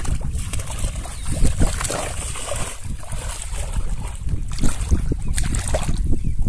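Wind buffeting the microphone, over small splashes and sloshing of shallow water around a person wading.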